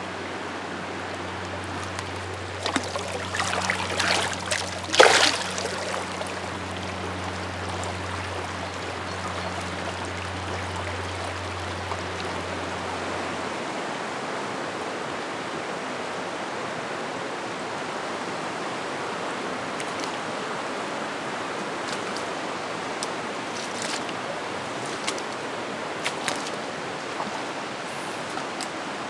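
Steady rush of a shallow, rocky creek running over stones, with a burst of splashing in the water a few seconds in.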